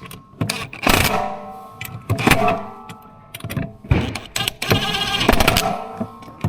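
Music with distorted electric guitar, with loud chords struck about once a second over held notes.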